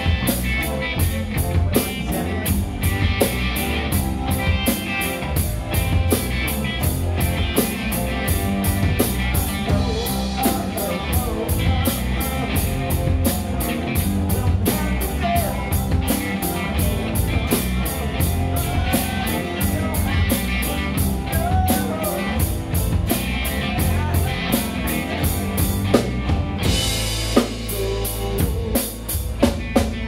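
Rock band playing live with no singing: drum kit keeping a fast, even beat on the cymbals over bass and electric guitar, with a sustained cymbal wash near the end.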